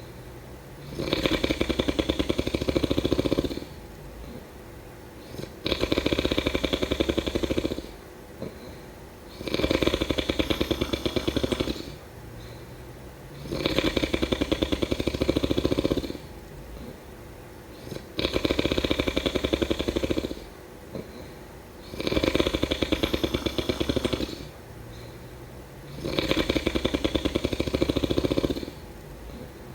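A sleeper snoring steadily: a loud, rattling snore about every four seconds, with quieter breathing between snores.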